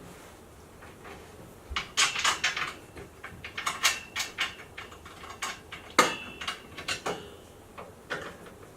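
Metal desk parts and hardware clinking and knocking as they are handled during assembly: a cluster of clinks a couple of seconds in, then scattered clicks and knocks, a few with a brief metallic ring, the sharpest knock about six seconds in.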